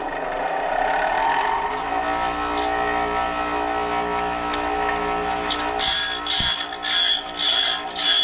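A 6-inch Porter-Cable bench grinder with a diamond wheel comes up to speed over the first two seconds and settles into a steady hum. From a little past the middle, a tungsten electrode fed through the guide meets the wheel in repeated short grinding rasps, about two a second.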